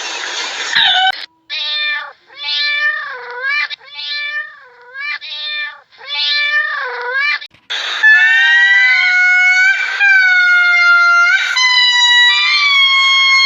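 Cat meowing in a string of short calls that dip in pitch, followed by several long, steady, high pitched calls that step down in pitch near the end.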